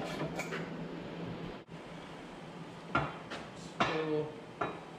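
A few sharp metallic clanks, about three seconds in and twice more near the end, as steel loader parts are moved and knock together.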